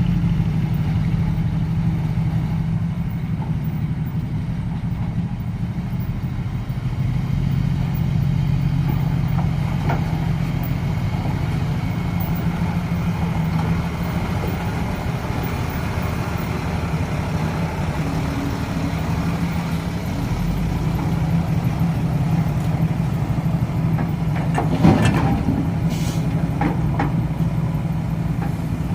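Heavy dump truck engine running steadily at a low rumble, its exhaust loud, with a few short metallic knocks about 25 seconds in.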